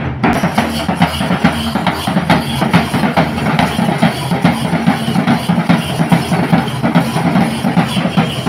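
Kerala temple-festival drumming for a Poothan and Thira dance: cylindrical barrel drums beaten with sticks in a fast, dense, unbroken rhythm.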